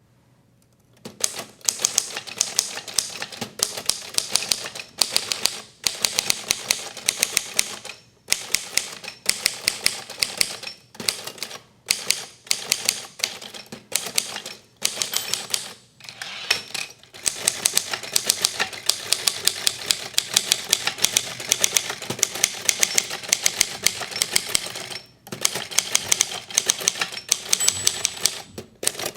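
Facit TP1 manual typewriter being typed on: rapid runs of key and typebar clacks, starting about a second in and broken by several short pauses.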